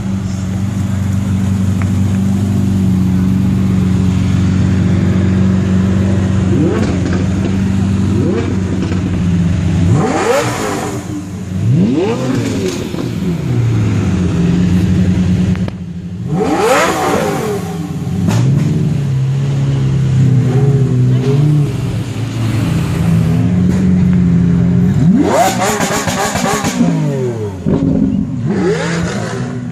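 Novitec Torado's V12 engine idling with a steady note and being blipped about five times. Each rev climbs sharply and drops back to idle; the longest and highest comes about twenty-five seconds in.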